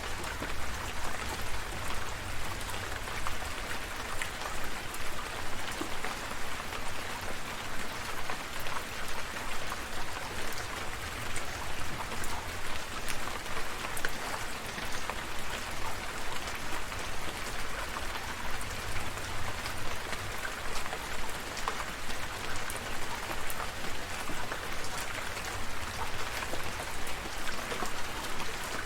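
Steady rain falling, a continuous patter with many small individual drops ticking on surfaces.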